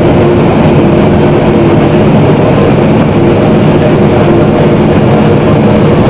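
Claas Lexion combine harvester running loud and steady while unloading shelled corn through its unloading auger into a grain cart: a dense machine drone with a steady hum.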